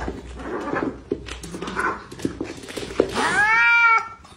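Two cats fighting: a scuffle of paws and thumps, then about three seconds in one cat gives a loud drawn-out yowl that rises and then holds for about a second.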